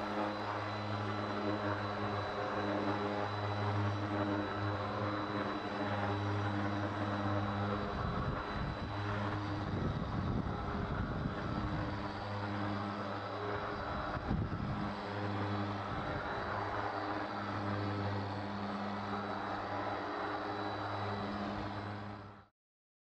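Random orbital sander with 180-grit paper running steadily on a wooden boat hull, a constant motor hum. Its sound turns rougher and scratchier about eight to ten seconds in and again around fourteen seconds, then cuts off suddenly near the end.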